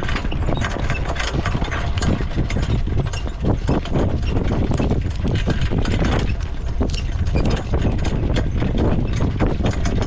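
Horse's hoofbeats at a jog, a quick run of knocks over a steady low rumble.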